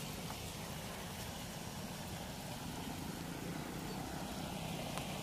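Steady rushing noise of river water pouring through a weir's sluice gates, even throughout with a low rumble underneath.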